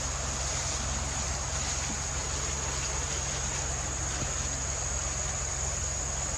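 Forest ambience: a steady high-pitched insect drone over a low, even rumble.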